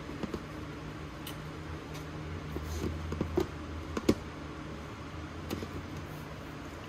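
Silicone spatula working a bowl of pudding folded with whipped cream in a plastic bowl: a few soft clicks, scrapes and knocks, the sharpest about four seconds in, over a steady low hum.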